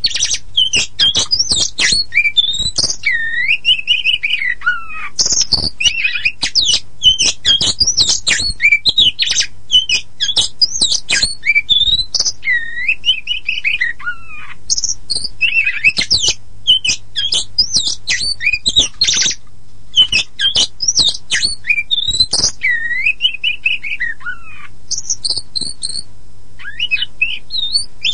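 Oriental magpie-robin (kacer poci form) in full song: a fast, unbroken string of varied sweet whistles, falling slurs and harsh chattering notes, easing into a brief lull near the end. A steady low hum runs underneath.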